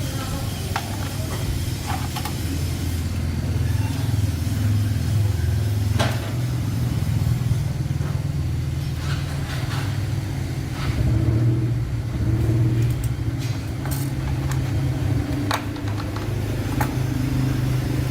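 A motor or engine running steadily with a low hum that gets somewhat louder a few times, with scattered sharp metallic clicks and knocks over it.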